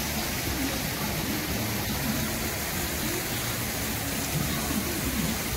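Fountain water jets arcing through the air and splashing down, a steady rushing spatter of water, with faint crowd voices underneath.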